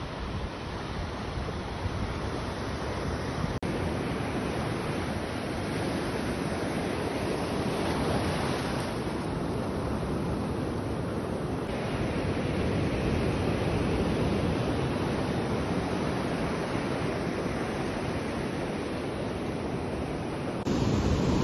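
Ocean surf washing onto the shore, a steady rushing noise with wind on the microphone, growing louder shortly before the end.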